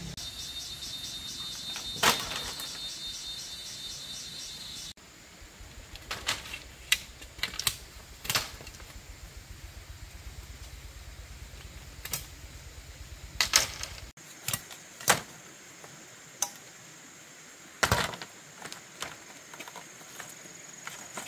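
Bamboo poles being handled, with irregular hollow knocks and clacks as the poles strike one another, the loudest about two seconds in, over a steady high-pitched background drone.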